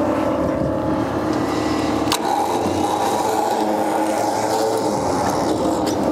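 Electric winch on a car-hauler trailer running steadily under load, pulling a non-running pickup truck onto the deck, from about two seconds in after a click. Before that, a steady drone.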